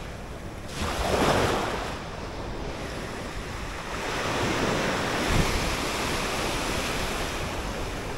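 Ocean surf breaking and washing up the beach, with wind on the microphone. The wash swells about a second in and again for a longer stretch from about four seconds.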